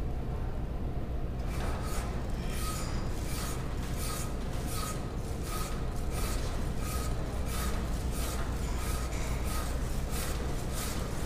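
A flat rasp scraping a plaster positive model in quick back-and-forth strokes, about two a second, starting about a second and a half in. The plaster is being shaved down to reduce the model's circumferences toward the target measurements for a transfemoral ischial containment socket.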